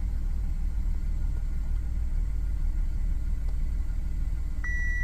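Audi Q5's engine idling in park, heard from the cabin as a steady low rumble. Near the end a single steady dashboard chime sounds for under a second, the instrument cluster's warning chime as the right dipped/main beam headlight failure message comes up.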